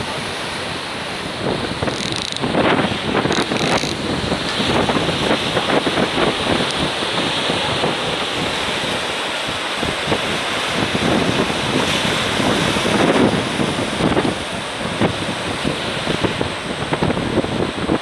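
Sea waves breaking and washing among concrete breakwater tetrapods, swelling louder a couple of seconds in and again past the middle, with wind buffeting the microphone.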